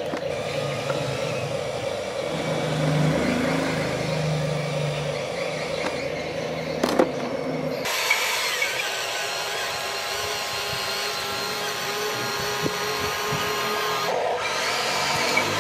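Electric motors of a Huina RC excavator whining as it moves its arm and bucket. The whine is a steady buzz for the first half, with a sharp click about seven seconds in, then changes to a higher, smoother whine about eight seconds in.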